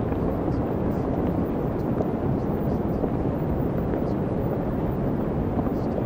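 Steady low rumbling noise, even and unchanging, the masking sound of a subliminal audio track, with a faint voice buried beneath it.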